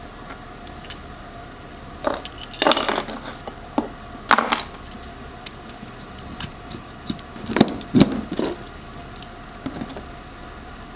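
Small hard parts being handled: scattered clinks and clattering knocks in a few clusters, over a steady low background hum.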